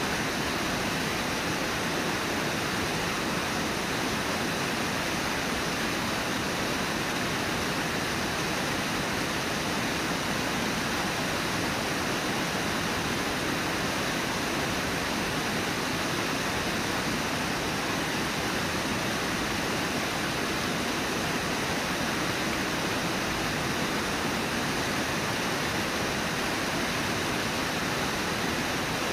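Steady rushing of white water at Brooks Falls, even and unbroken.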